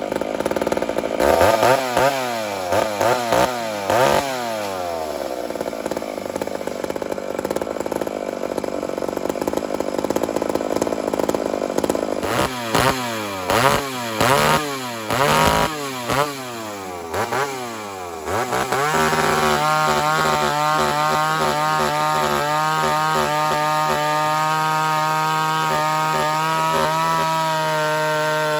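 Ported Homelite Super XL 925 two-stroke chainsaw (82 cc, 28-inch bar, skip-tooth chain) revved up and down in short blips, with a steadier stretch in between. From about two-thirds of the way in it is held at a steady high speed, cutting dry white oak.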